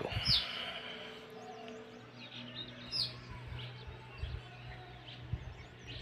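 Birds chirping in short, scattered calls, over a faint steady low hum.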